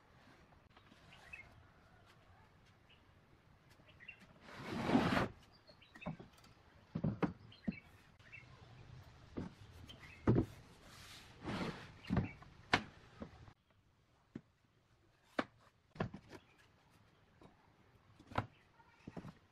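Pine boards of a handmade folding table and stool knocking and clattering as they are handled, tipped and set down on a wooden workbench, with a longer, louder scrape about five seconds in.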